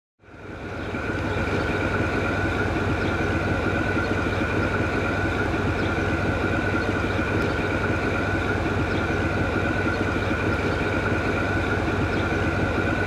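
Diesel engine of the General Electric/Caterpillar diesel-electric locomotive A-223 idling steadily while the locomotive stands still, with a low hum and a steady high whine over the engine's run. It fades in at the start.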